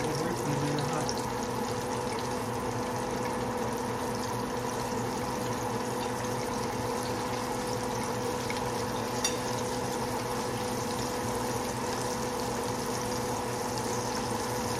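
Coated pork chops frying in hot oil in a skillet, a steady sizzle with a faint steady hum underneath. A single short tick about nine seconds in.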